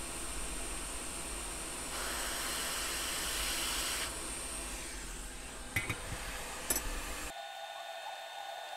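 Hot air rework station blowing a steady hiss onto a phone logic board to desolder a power-controller chip, growing louder for a couple of seconds midway, with two light clicks. About seven seconds in the hiss cuts off abruptly, replaced by a fainter steady whine.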